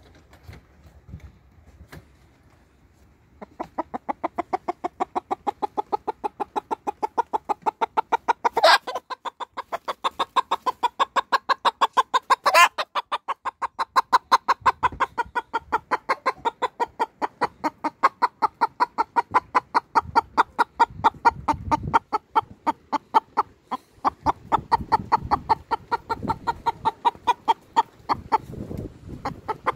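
A hen clucking in a fast, even run of about four short clucks a second, starting a few seconds in and keeping on, with two sharper, louder squawks about nine and thirteen seconds in.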